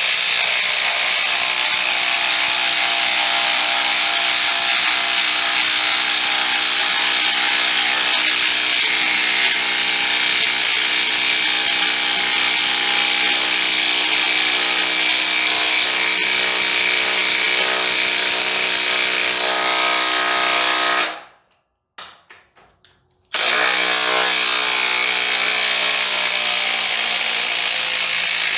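DeWalt Atomic compact 1/2-inch cordless impact wrench hammering steadily as it drives a 10-inch lag bolt into a wooden beam. It cuts out suddenly about 21 seconds in, and after a two-second gap it starts hammering again.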